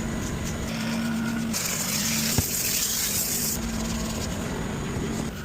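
A steady low hum runs under a hissing spray of about two seconds in the middle, with one sharp click during the spray: detailing equipment at work on a car interior.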